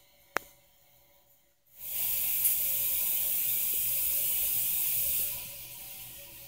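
Air hissing through a spring-loaded pressure-relief tank hatch under test: a single sharp click, then about a second and a half later a steady rush of air that runs for about three and a half seconds and tapers off.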